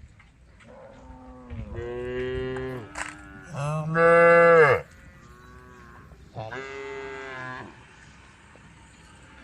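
Cows mooing: four long calls one after another, the loudest about four seconds in.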